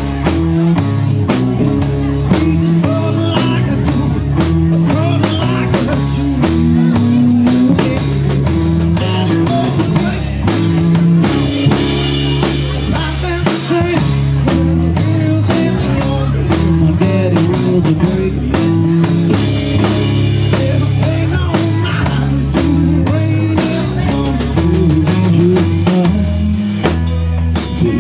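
Live rock band playing: drum kit keeping a steady beat under electric guitars and a strummed acoustic guitar.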